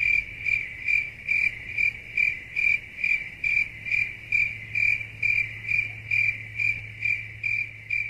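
Cricket chirping sound effect, the awkward-silence meme: a high chirp repeating evenly about two and a half times a second, over a faint low hum.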